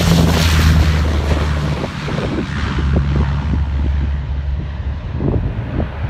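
Twin-engine Aero Commander at full takeoff power, rolling down the runway, lifting off and climbing away. Its steady engine drone carries throughout, while the high rushing hiss fades as it pulls away. Wind buffets the microphone.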